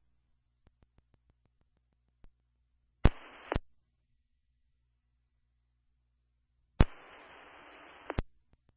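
Fire department two-way radio channel heard through a scanner feed: twice a transmitter keys up with no voice, giving a burst of radio hiss that opens and closes with a sharp squelch click. The first burst, about three seconds in, lasts half a second; the second, near the end, lasts about a second and a half.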